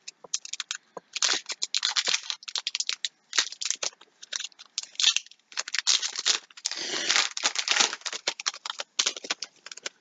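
Foil wrapper of a trading-card pack crinkling and tearing as it is opened by hand, a string of short irregular crackles that is densest in the middle.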